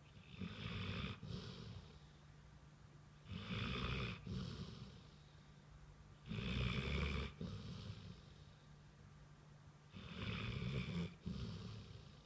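A sleeping dog snoring: four long snoring breaths about three seconds apart, each broken by a brief pause partway through.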